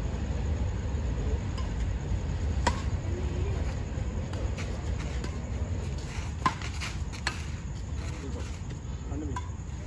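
Badminton rackets striking a shuttlecock during a rally: several sharp, short clicks a second or more apart, over a steady low background rumble.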